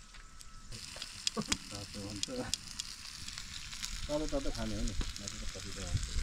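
Meat sizzling on a hot stone slab: a steady frying hiss that swells less than a second in, with many small sharp pops of spitting fat.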